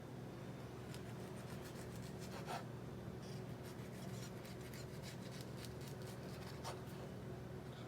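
Faint, irregular small scrapes and taps of a knife cutting strawberries, over a steady low hum.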